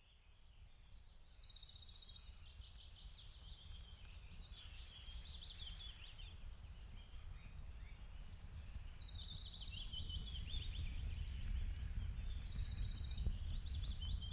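Outdoor ambience of small birds singing, many short repeated trills and chirps over a low steady rumble, fading in gradually from near silence.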